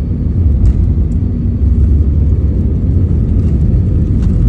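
Airliner cabin during landing: a loud, steady low rumble from the wheels rolling on the runway, heard through the fuselage, growing a little louder just after the start as the ground spoilers deploy at touchdown.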